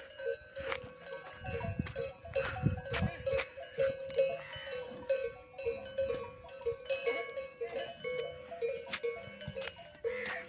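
Livestock bells clanking steadily and unevenly as a camel herd moves about, with low animal grumbling about two seconds in.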